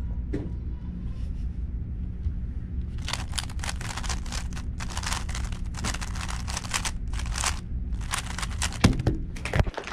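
Gan 12 Maglev 3x3 speed cube being turned very fast: rapid runs of plastic clicking that start about three seconds in and go on for about six seconds, ending with two sharp knocks.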